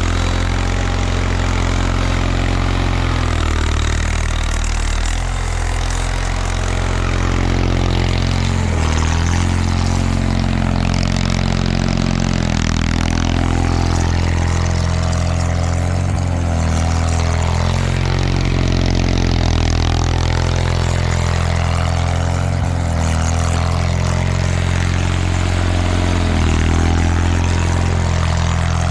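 1979 Bolens HT-23 garden tractor's 23 hp opposed-twin Kohler K582 engine running steadily under load, its pitch dipping and recovering slightly a few times.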